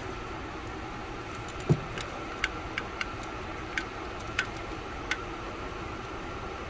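Light clicks and a knock from parts and tools being handled around an open cylinder head's rocker arms and wiring harness: one duller knock about a second and a half in, then a string of about seven short sharp clicks over the next few seconds, over a steady background hum.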